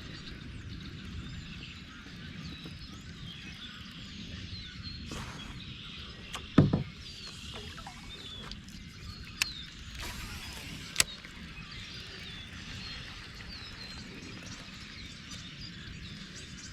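Steady rush of high creek water around a kayak, with faint bird chirps over it. A loud hollow knock against the kayak comes about six and a half seconds in, followed by two sharp clicks a few seconds apart.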